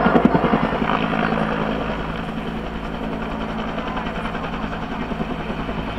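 Bell AH-1 Cobra helicopter's rotor beating with a fast, even pulse. It is loudest in the first second, then eases slightly.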